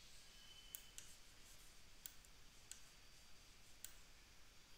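Faint, scattered computer mouse clicks, about five over a few seconds, over quiet room tone.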